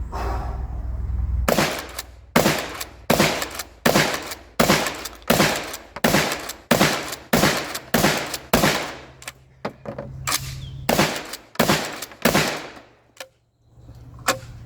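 A 12-gauge Axor Arms FMP pump-action shotgun with a 12-inch barrel is being fired fast from a 20-round drum magazine. There are about fifteen shots at nearly two a second, and the shooting stops a couple of seconds before the end.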